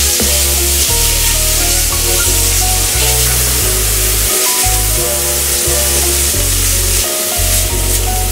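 Minced beef with garlic, shallot and chilli sizzling in a hot steel frying pan as it is stirred with a silicone spatula, a steady frying hiss. Background music with a deep bass line plays over it.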